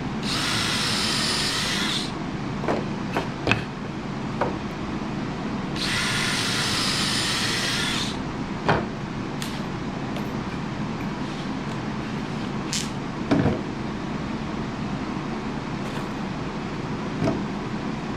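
A power drill runs twice, for about two seconds each time, once at the start and again about six seconds in, working in wooden wedges and stud lumber. Scattered knocks of wood and tools sound in between.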